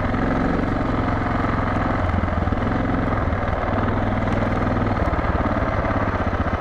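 Suzuki DR650's single-cylinder four-stroke engine running steadily under way on a dirt trail. Its firing beat becomes more pronounced about five seconds in.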